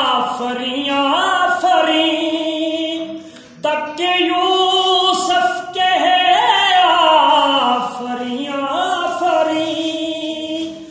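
A man singing an Urdu naat unaccompanied, drawing out long, wavering held notes between the words of a line, with a short pause for breath about three and a half seconds in.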